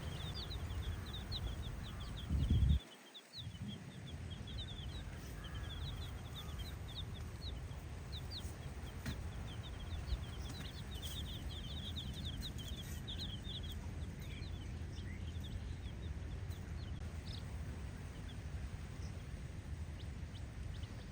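A brood of baby chicks peeping, many short high chirps overlapping, thinning out after about fourteen seconds. A brief low thump about two and a half seconds in, loudest of all, is followed by a moment's dropout.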